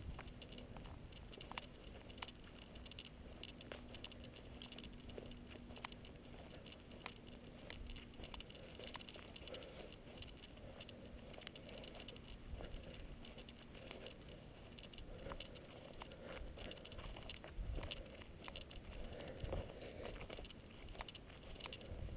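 A hiker's footsteps along a dirt trail: irregular soft steps with small scratchy clicks. A faint steady low hum runs under the first half.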